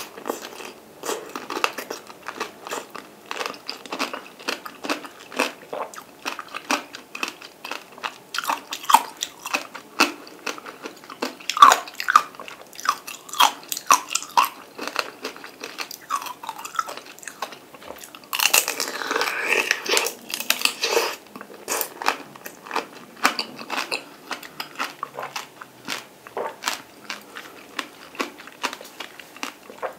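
Close-up chewing of peeled mandarin orange segments: many short, juicy bites and wet mouth smacks at an uneven pace. A longer rustle of about two seconds comes just past the middle.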